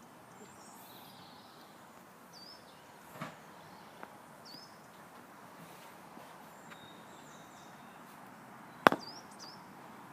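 Quiet outdoor background with a few faint bird chirps, a soft knock about three seconds in, and a single sharp knock near the end.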